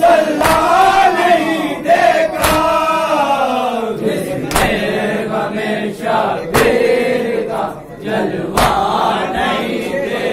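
A group of men chanting a salaam, a Shia mourning recitation, in unison, with a loud collective chest-beat (matam) landing together about every two seconds, five strikes in all.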